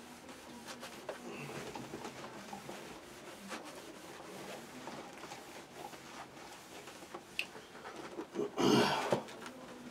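Cotton rag wiping and drying a cardboard box: faint, steady rubbing and scuffing with small ticks, then a loud breath near the end.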